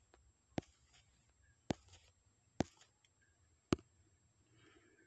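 Four sharp taps, about a second apart, from fingers handling a smartphone, picked up by the phone's own microphone over faint room tone.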